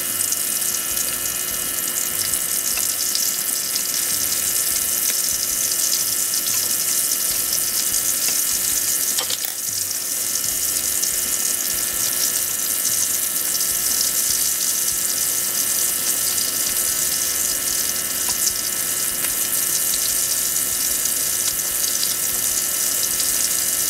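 Cornstarch-battered sea robin pieces frying in hot oil in a skillet: a steady, loud sizzle.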